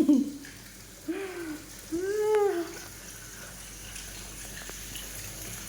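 A domestic cat meowing three times: a short, loud meow at the start, a brief one about a second later, and a longer, drawn-out meow about two seconds in. A steady hiss runs underneath.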